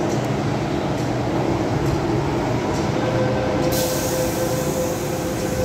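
Metro-Cammell M-Train electric multiple unit standing at an underground platform with its doors open, its equipment humming steadily. About three seconds in a steady tone joins the hum, and soon after a loud hiss starts.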